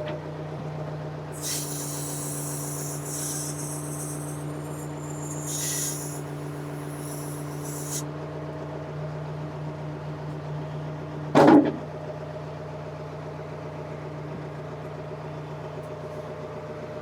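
Ford 555C backhoe's diesel engine idling steadily, with a hiss from about 1.5 to 8 seconds in and one short, loud noise about 11.5 seconds in.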